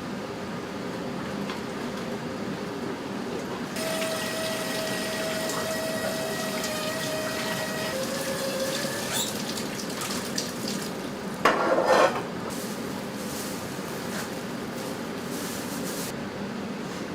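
Commercial kitchen sounds over a steady background hum: water and dishes being handled, with a held pitched tone for about four seconds that drops a little and fades, a few light clinks, and a loud short burst of noise about twelve seconds in.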